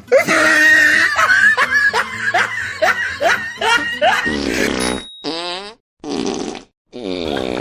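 Laughter for about four seconds, then a run of recorded fart sound effects: several short buzzing farts, each under a second, with brief silent gaps between them.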